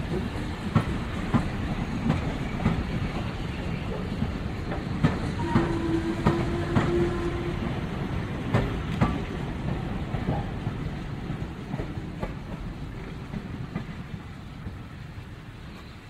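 Steam train moving off: wheels clacking over the rail joints, with irregular metallic knocks over a low rumble. A short steady tone sounds about five seconds in. The whole sound fades away toward the end.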